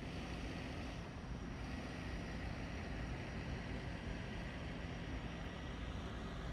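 Steady low rumble and hum of background noise on a Shinkansen station platform, with a faint steady high whine.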